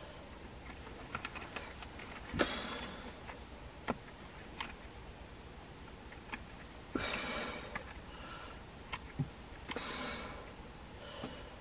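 Small metal clicks and ticks from a wooden snap trap as gloved hands re-bait and reset it, with a few short, loud breaths or sniffs from the person working close to the microphone.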